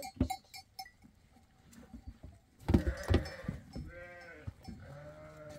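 Goats bleating in their pen: two drawn-out bleats in the second half. Just before them, about three seconds in, come a few loud knocks and rustling.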